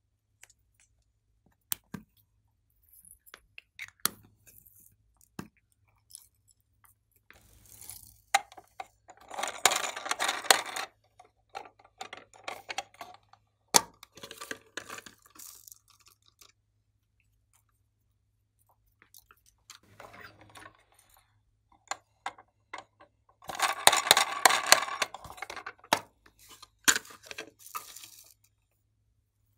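Hard plastic toy cases being handled and opened, giving scattered sharp clicks and knocks. Twice, a second or two of dense rattling from small loose plastic pieces such as sequins being shaken or tipped out of a case.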